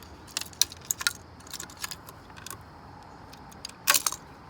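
Small hard tags jangling and clicking together as they are handled and held up to a puzzle geocache's sensor. It is an irregular scatter of light clicks, with the loudest cluster near the end.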